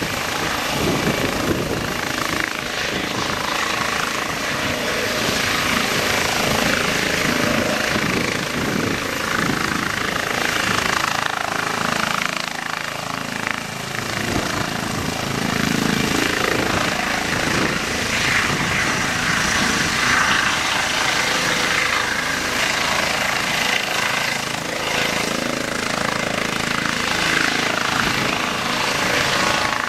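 Eurocopter EC135 helicopter's twin turbines and rotors running at flight power as it lifts off and hovers just above the grass: a steady, loud turbine whine mixed with rotor noise and its ducted Fenestron tail rotor.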